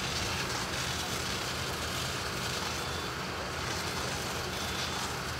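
Steady din of fire-service vehicle engines running at a working fire, with a constant hiss over a low rumble. No single event stands out.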